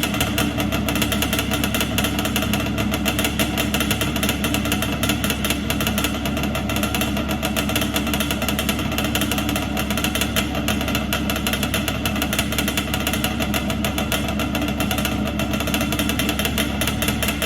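A car engine running steadily, with a fast, even pulse.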